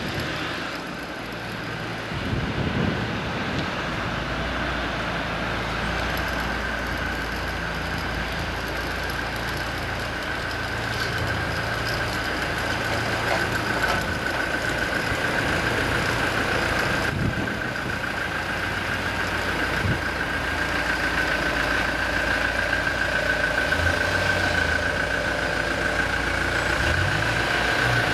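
Engine running steadily, with a steady high-pitched whine that grows louder through the second half.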